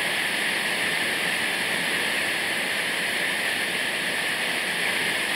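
Waterfall rushing, a steady, unbroken hiss of falling water.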